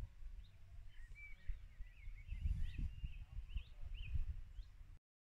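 Wild birds chirping in short, quick calls through the middle, over low gusts of wind buffeting the microphone. The sound cuts out briefly near the end.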